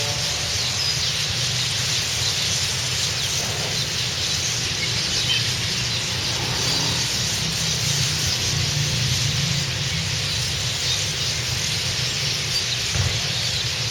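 A large flock of small birds perched on a wire, chirping and twittering continuously in a dense, high-pitched chorus, over a steady low rumble.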